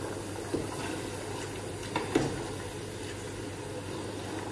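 A long wooden spoon stirring chunks of marinated meat in a large aluminium stockpot, with a few short knocks of the spoon against the pot, over a steady background hum.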